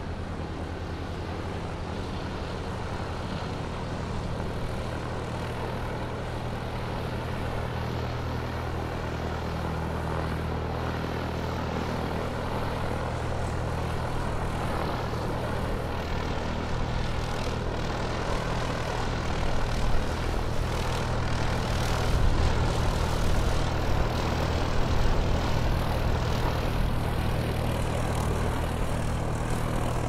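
Airplane engine drone: a steady low hum under a broad rushing noise. It grows slowly louder and becomes more uneven in the second half.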